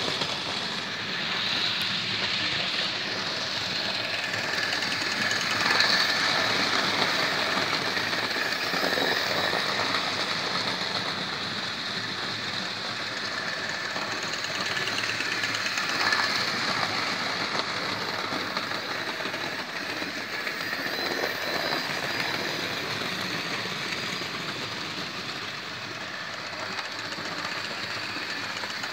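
Hornby OO-gauge model locomotives running round a layout pulling wagons: small electric motors whirring steadily with the wheels rattling on the track, swelling briefly a couple of times as a train passes close.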